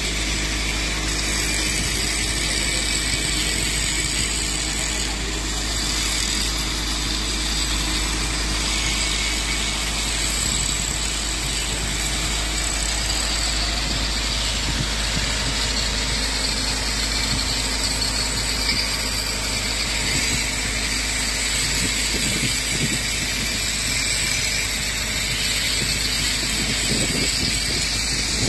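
Electric angle grinders running steadily as they grind steel workpieces: a continuous hiss with a faint high whine over a low rumble.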